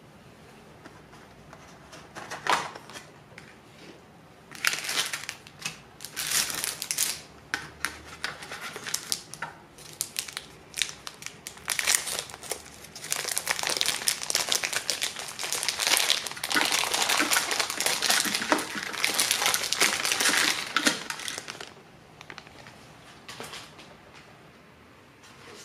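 Plastic packaging crinkling and tearing by hand as a bag of ready-boiled udon noodles is pulled open, in irregular bursts that grow busier and then stop a few seconds before the end.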